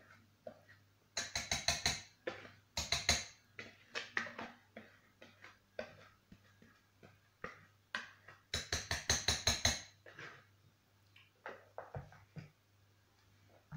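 Cake batter being emptied from a bowl into a round metal cake pan, with two bursts of rapid knocking, about eight strokes a second, about a second in and again near the end, and scattered lighter clicks between.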